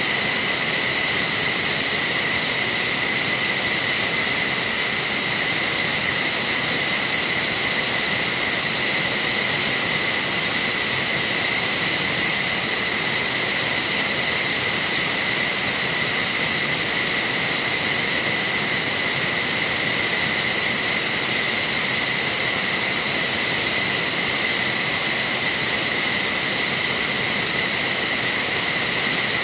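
F-15SG fighter jet turbine noise during ground start-up: a steady high-pitched whine over a loud rushing hiss, unchanging throughout.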